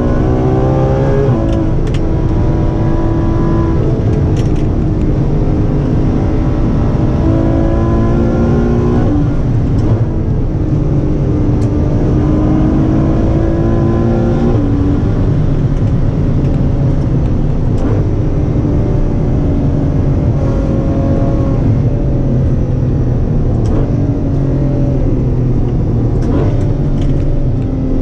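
Ferrari F12's naturally aspirated 6.3-litre V12, heard from inside the cabin while pulling uphill. Its note climbs again and again under acceleration and drops back with each upshift.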